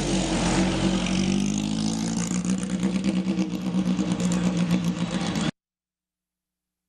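Vintage single-seat racing car's engine running as the car pulls away, steady after a slight shift in pitch early on. The sound cuts off abruptly about a second before the end, leaving silence.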